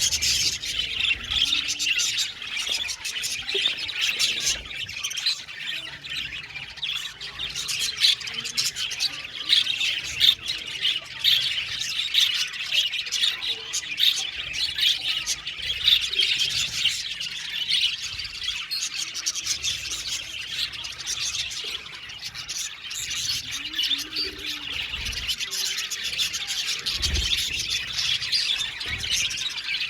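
A flock of budgerigars chirping and chattering together, a dense continuous stream of many overlapping short high calls.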